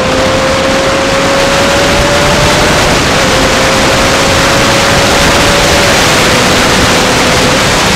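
Onboard sport motorcycle accelerating down a straight, its engine pitch climbing steadily and dropping at upshifts about three and six seconds in, under a heavy rush of wind on the bike-mounted microphone.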